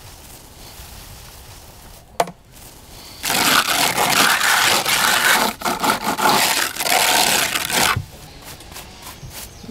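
Hand float rubbing in firm strokes over textured exterior render, a loud scraping that starts about three seconds in and stops about eight seconds in, with a single sharp knock just before it. It is the finishing coat being floated to blend the repairs into the wall.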